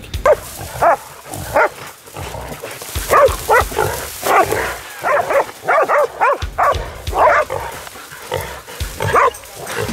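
Pig dogs barking repeatedly in short, sharp barks at a wild boar they have caught and pulled up.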